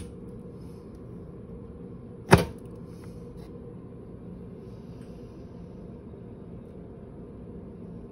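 Baratza single dose hopper's airtight lid pumped down like a bellows: a sharp clack about two seconds in with a short rush of air after it, a softer click at the very start and a few faint clicks just after the clack.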